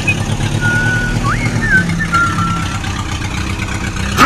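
Tractor engine idling steadily with a low pulsing rumble, with a few short high whistled chirps over it in the first two seconds and a sudden loud burst at the very end.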